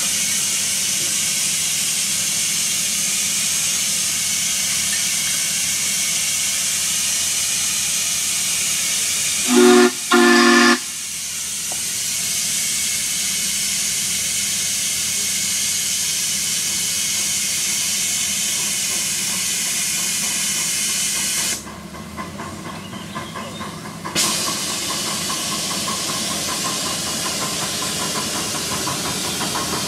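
Live-steam model Mikado (2-8-2) locomotive standing with a steady steam hiss, then two short blasts on its steam whistle about ten seconds in, the signal to proceed. The hiss cuts off a little past the middle, and near the end the engine gets under way with a fast rhythmic sound of working steam.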